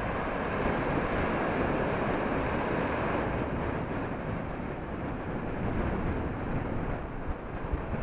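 Wind buffeting the microphone with a low rumble, over the steady wash of rough sea surf breaking on the beach.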